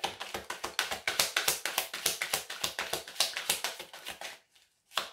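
A deck of oracle cards being shuffled by hand: a rapid run of crisp card clicks, about ten a second, that stops briefly near the end and then starts again.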